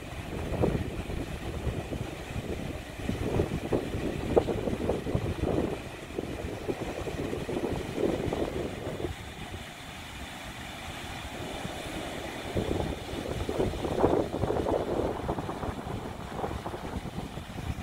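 Wind buffeting a phone's microphone in uneven gusts of low rumble, easing off for a few seconds in the middle, over a faint steady hiss of breaking sea surf.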